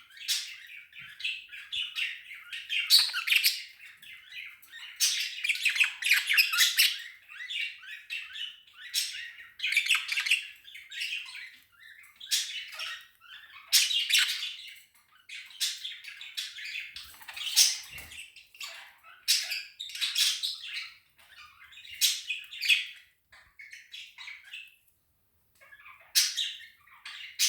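Pet budgerigar squeaking and chattering in repeated short bursts, with brief pauses between them.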